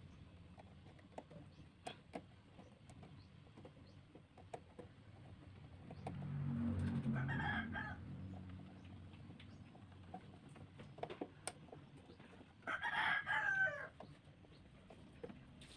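A rooster crowing twice, the first about six and a half seconds in and the louder second near thirteen seconds, with faint scattered clicks and taps between.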